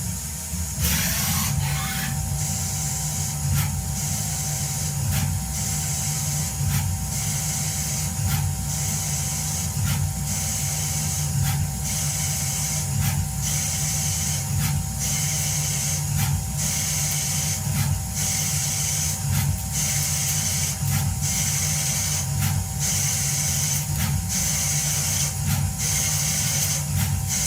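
CNC lathe running through a cut: a steady low machine hum with a constant mid-pitched tone, and a high hiss that swells and fades over and over.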